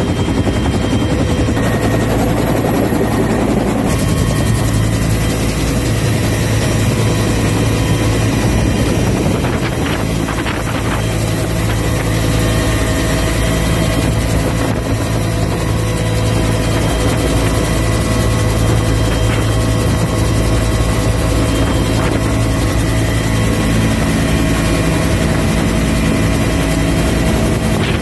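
Military helicopter's engine and rotor running steadily at flight power as it lifts off and flies, heard loudly from inside its open-door cabin.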